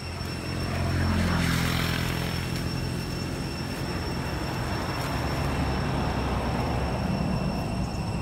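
Motor vehicle engine running nearby, a low rumble that swells about a second in and then holds steady.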